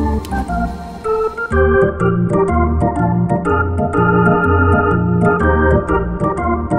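Upbeat organ-style keyboard music; a steady beat with ticking percussion joins about a second and a half in.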